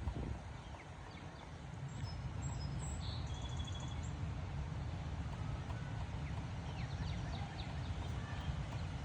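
Strong wind buffeting the microphone as a steady low rumble, easing briefly near the start. Faint high bird chirps come through a few seconds in.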